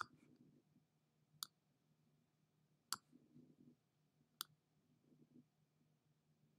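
Four sharp computer mouse clicks, evenly spaced about a second and a half apart, over a faint steady low hum.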